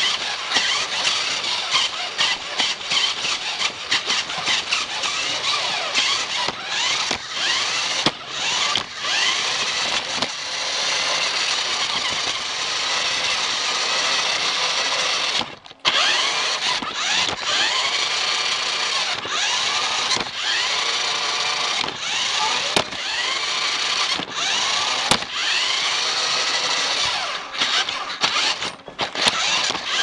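Toy remote-control car's small electric motor and gears whining, the pitch rising and falling over and over as it speeds up and slows down. It stops and starts many times in the first ten seconds and cuts out briefly about halfway.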